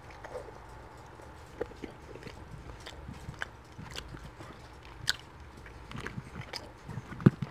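Close-up chewing of chicken shawarma and rice, with soft wet mouth clicks and smacks. A plastic fork scrapes and taps in a foam takeout container now and then, with a few sharper clicks.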